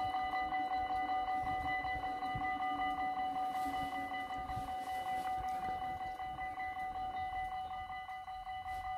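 Dutch level-crossing bells ringing rapidly and evenly, about four strokes a second, warning that a train is coming as the barriers lower.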